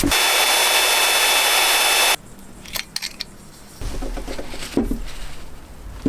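A power tool working wood runs loudly with a steady high whine, then stops abruptly about two seconds in, followed by a few light knocks and clicks of handling.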